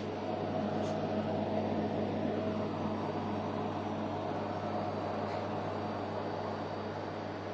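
Steady electrical hum of a cake shop's cooling equipment, such as a refrigerated display case or air conditioning, with a low even drone and a faint hiss. It grows slightly louder about as the sound begins.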